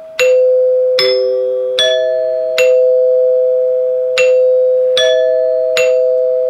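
NuTone LA305 short-tube bar chime playing its 8-note sequence: solenoid strikers hit the tone bars about once every 0.8 s, in two phrases of four with a short pause between them, each note ringing on under the next. The last strike falls at the very end.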